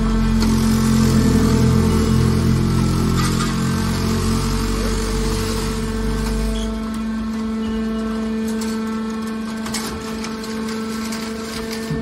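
Hydraulic power unit of a scrap-metal baler humming steadily while its ram pushes a compressed bale of aluminum scrap out of the chamber. A heavy low rumble under the hum eases off a little over halfway through, and a few sharp metallic clicks come in the second half.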